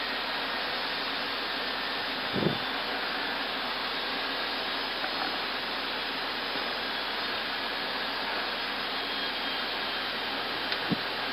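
Steady airflow and air-conditioning hiss on an Airbus A320 flight deck in flight. A single low thump about two and a half seconds in and a faint click near the end.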